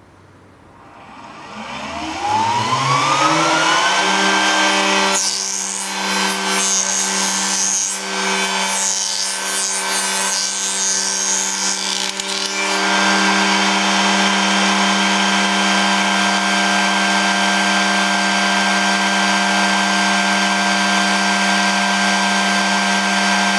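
Motor of a manual curvilinear edge-trimming machine spinning up to speed over a few seconds, its pitch rising, then running at a steady whine. From about five seconds in to about twelve seconds in, the cutter bites into the edge with rough, uneven cutting noise, then it runs free again.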